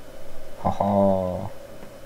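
A person's short, low grunt of effort, held at one pitch for under a second, while forcing a stiff plastic model-kit part into place.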